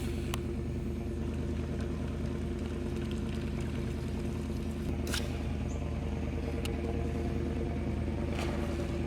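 Boat motor running at a steady speed, an even hum with no change in pitch, with a few brief ticks near the middle and the end.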